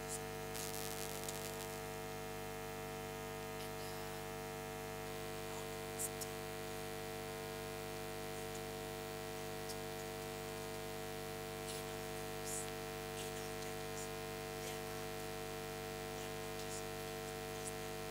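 Steady electrical mains hum and buzz, made of many steady tones, with a few faint clicks.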